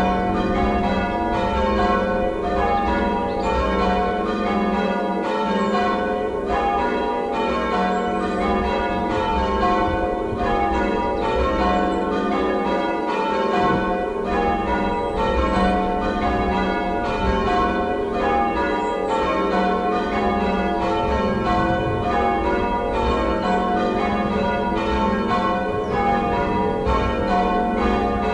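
A ring of six church bells, tenor about 10 cwt in F, rung in changes. The bells strike one after another in a steady, even rhythm, their tones ringing on and overlapping.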